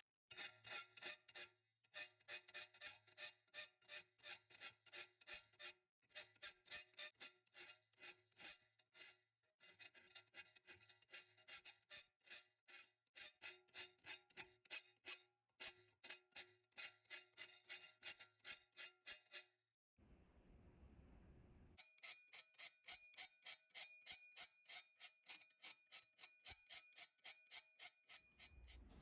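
Hand tool worked in quick back-and-forth strokes, about three a second, on the steel knife blank cut from a concrete saw blade, most likely a file. The steel rings with each stroke. The strokes come in runs broken by short pauses, and after a longer pause near the end the ringing is at a different pitch.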